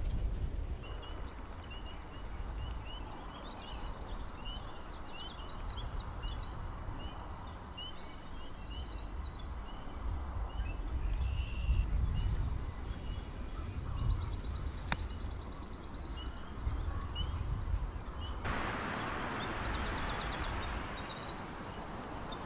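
Songbirds calling outdoors: many short repeated chirps, with a few quick trills, over a low rumble. About three-quarters of the way through, a steady hiss comes in suddenly.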